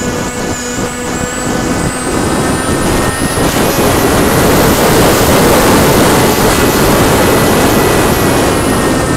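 A radio-controlled model plane's propeller motor heard from a camera on the plane: a steady whine, overtaken by rushing air noise that builds as the plane dives and swoops low and is loudest about halfway through. The rush eases and the motor tone comes back near the end.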